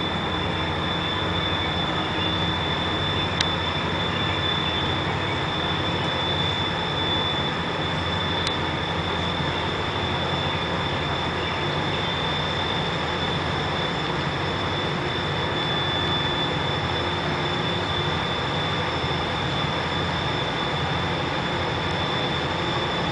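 Towboat diesel engines running steadily under load, pushing a loaded barge tow upstream, heard as a low pulsing drone across the river. A thin steady high tone sits over it, and two faint clicks come a few seconds apart early on.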